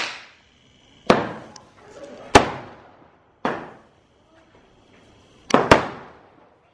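A Diwali sky shot (a multi-shot aerial firework) firing, about six sharp bangs roughly a second apart, each trailing off in an echo. Two bangs come close together near the end.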